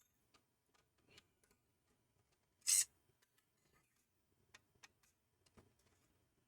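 Hand-tool work on heat-sink screws: a few faint clicks and one short, louder scrape a little under three seconds in, as a screwdriver turns the screws holding a CPU heat sink.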